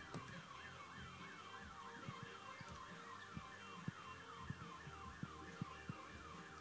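Electronic alarm siren warbling up and down about three times a second, stopping near the end, with scattered low thumps underneath.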